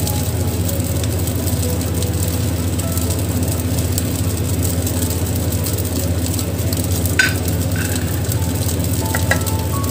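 Fried rice sizzling in a wok over a gas burner: a steady hiss over a low, even hum, with one sharp clink about seven seconds in.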